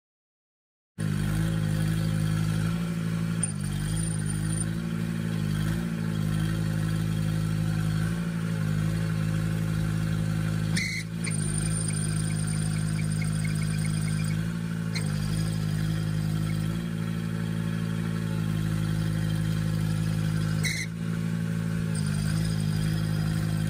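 Cub Cadet garden tractor engine running at a steady speed while the front loader's bucket is raised and tilted. Two brief dips, each with a click, come about 11 and 21 seconds in.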